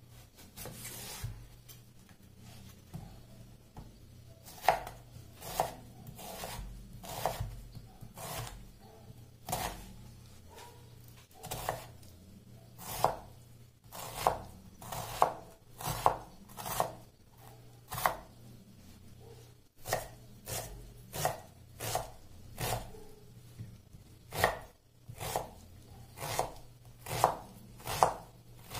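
Kitchen knife chopping a peeled onion on a wooden cutting board: a long series of sharp knife strikes against the board, few at first, then about one to two a second in uneven runs with short pauses.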